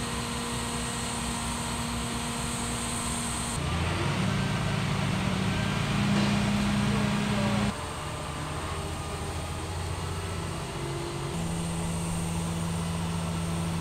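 Work-truck engines and job-site machinery running with a steady low hum. The hum changes abruptly in pitch and loudness every few seconds.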